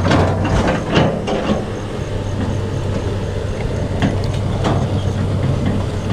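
Large tracked excavator's diesel engine running steadily, with a cluster of sharp knocks in the first second and a half and more about four seconds in.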